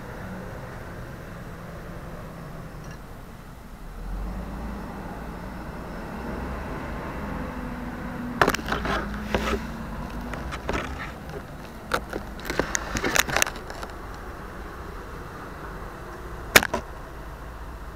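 Steady hum of distant street traffic, then about halfway a cluster of clicks and knocks lasting several seconds as the cardboard airplane carrying the keychain camera is handled and moved, and one sharp click near the end, the loudest sound.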